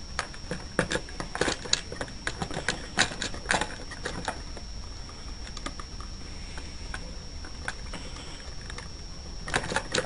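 Irregular small clicks and taps of a screwdriver and wire ends against a plastic terminal block as wires are fastened into it; the clicks thin out in the middle and pick up again near the end.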